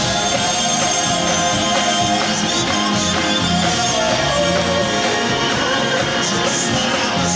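Live rock band playing an instrumental passage between sung lines, with guitar in the mix.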